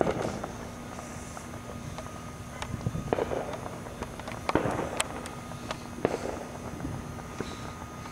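Firework and firecracker bangs: a string of sharp, irregularly spaced cracks and pops, some followed by a short crackle, the loudest at the start and about five seconds in.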